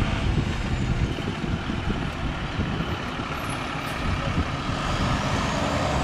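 Wind buffeting the microphone over a low, steady rumble, with the noise of an approaching passenger train building slightly in the last second or so.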